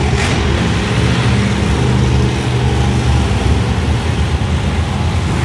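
Monster truck engines running loud, a deep continuous drone whose pitch shifts slightly as the trucks rev.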